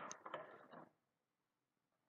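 Near silence: a faint brief rustle and click in the first second, then nothing.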